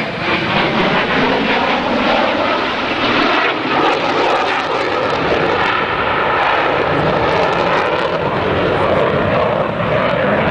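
F-16 fighter jet flying past overhead, its single jet engine making a loud, steady roar.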